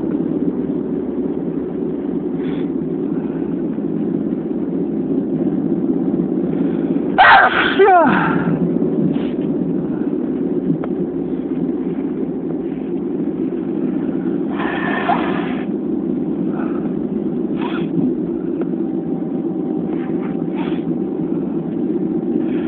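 A person sneezing: one loud sneeze with a sliding voiced cry about seven seconds in, and a second, breathier sneeze-like burst around fifteen seconds in, over a steady low background rumble.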